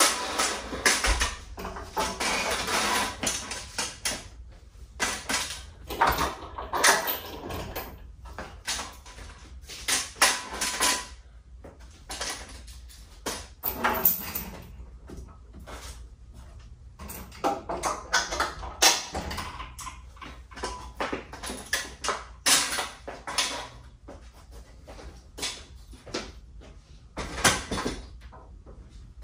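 A wooden 2x4 fold-up stand frame being swung up and stowed against the ceiling: irregular knocks, clunks and scrapes of lumber being handled, with louder knocks now and then.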